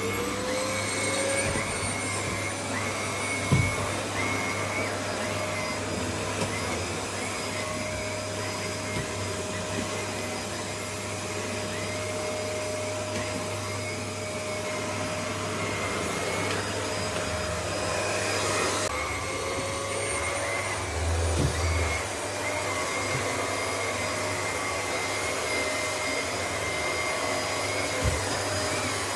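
Paper-bag vacuum cleaner motor spinning up, then running steadily with a high whine. Near the middle its pitch dips and climbs back. A few dull knocks sound over it as the cleaner is worked.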